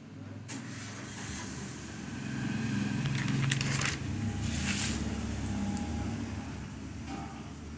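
A paper workbook page being turned, with rustles about three seconds in and again near five seconds, over a low rumble that swells and then fades.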